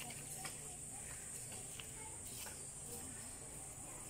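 Quiet garden ambience: a steady high insect drone, with a few faint clicks.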